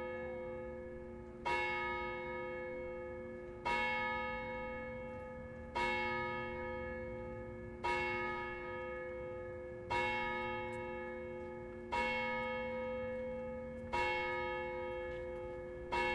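Hour bell of the Graz Uhrturm clock tower striking: eight slow strokes about two seconds apart, each ringing on and fading before the next.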